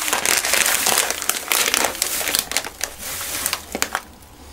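Plastic bag of rice crinkling as it is handled and folded, with scattered sharp clicks; it dies down about four seconds in.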